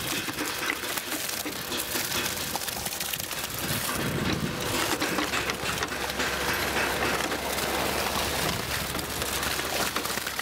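Wet concrete pouring out of a suspended concrete bucket onto a slab inside wooden formwork: a steady gritty rushing with many small clicks of aggregate, growing heavier and lower from about four seconds in.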